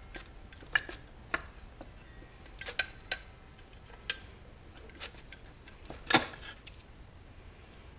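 Metal parts of a small lawn mower engine clinking and knocking against each other as it is being taken apart by hand. There are about eight separate sharp clicks, the loudest about six seconds in.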